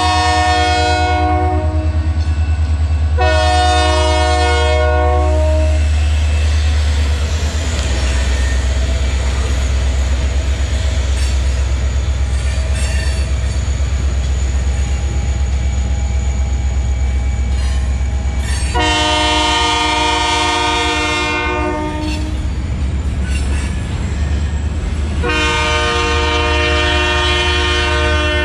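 Union Pacific diesel locomotive sounding its multi-note air horn in long blasts, twice near the start and twice more in the second half, for a grade crossing, over the steady low rumble of its diesel engine. Between the blasts the freight cars rattle and clatter as they roll past.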